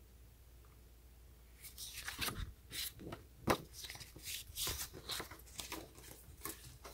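Paper leaflets and cardboard packaging rustling and tapping as they are handled, a string of uneven rustles that starts after a short quiet spell, with one sharper tap about three and a half seconds in.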